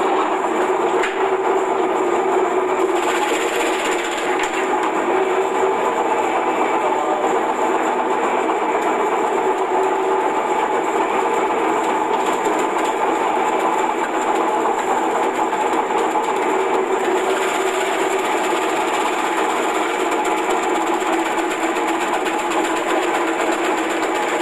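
Electric vegetable slicer machine running steadily, its motor and spinning cutter slicing whole onions fed through the hopper into rings, with stretches of louder rasping cutting noise.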